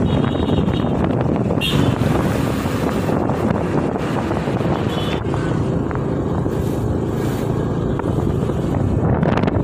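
Motorcycle riding along a road: steady engine and road rumble with wind rushing over the microphone. A few short, high beeps sound near the start and again about five seconds in.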